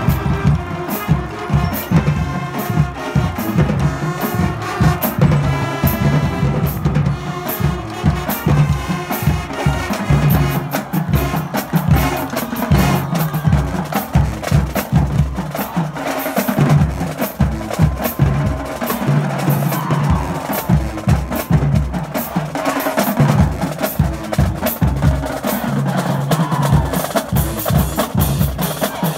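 High school marching band playing: a fast, steady drum cadence of snare and bass drums with low brass notes underneath.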